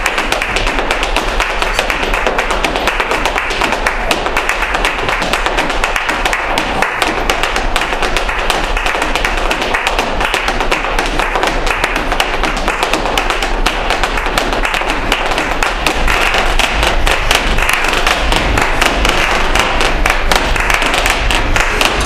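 Flamenco dancer's shoes striking out fast footwork (zapateado), a dense run of sharp taps that grows louder about two-thirds of the way through.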